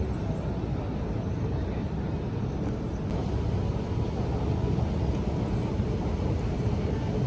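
Steady low rumble and hum of an underground railway station concourse.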